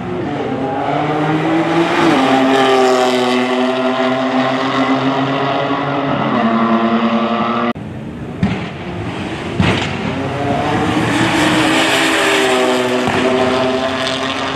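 Two high-performance cars accelerating flat out side by side, engines revving up through the gears with the pitch dropping at each upshift. About halfway through it cuts to another pair doing the same, with a couple of sharp cracks.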